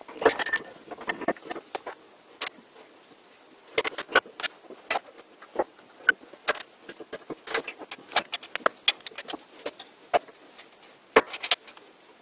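Lathe spindle and belt pulley being pushed by hand through the headstock's bronze bearings: irregular metallic clicks, clinks and light knocks. The clinks come thickest in the first second or so, with a sharper knock about eleven seconds in.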